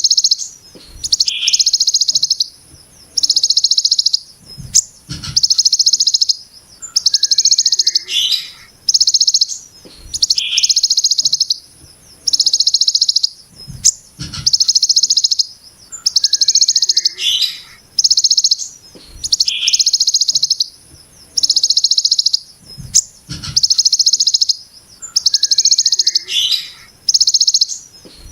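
Hill prinia (ciblek gunung) giving its 'brem' call: dense, harsh, high buzzy rattles about a second long, repeated one after another roughly every second and a half. Short chirps come before some of the rattles, and there are a few dull low thumps.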